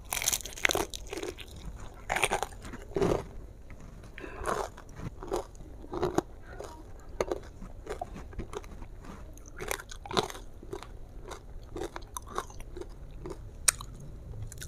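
A bite into a piece of thickly battered crispy fried chicken dipped in spicy sauce, then steady chewing with irregular crunches of the crust, the loudest crunches every second or two.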